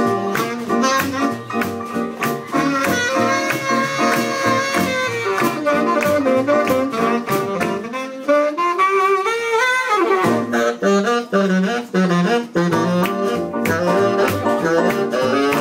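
A small jazz band playing live, led by baritone saxophone and clarinet over piano, bass and drums. Near the middle one instrument plays a long rising slide in pitch that stops abruptly.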